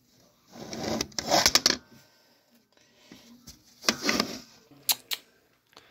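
A plastic Nerf blaster and plush toys being handled: two spells of rustling and scraping, then two sharp clicks about five seconds in.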